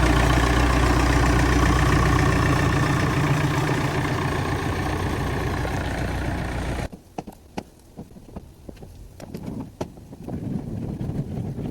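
Leyland 262 tractor's four-cylinder diesel engine running loud and steady just after starting. It cuts off abruptly about seven seconds in, leaving faint wind and a few light knocks.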